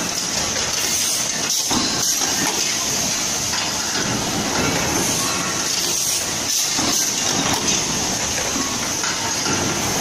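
Steady din of a pressure cooker production line's punch presses and conveyors running together, a dense machinery noise with a constant high hiss.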